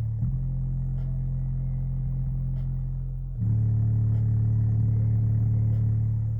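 Microlab subwoofer playing long, deep bass notes, each held for about three seconds, with the note changing about a third of a second in and again about halfway through.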